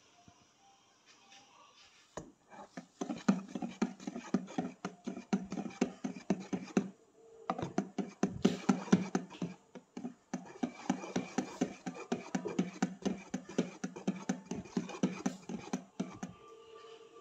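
Wire balloon whisk beating cake batter by hand in a plastic bowl: quick, rhythmic clicking and scraping strokes of the wires against the bowl. They start about two seconds in, break off briefly about seven seconds in, and stop shortly before the end.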